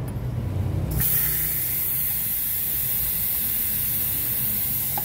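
Steady hiss of pressurized gas venting from an air-conditioner refrigerant line through a manifold gauge hose. It starts suddenly about a second in. The line is being blown down to see how much compressor oil comes out, and it shows the oil is still a little low.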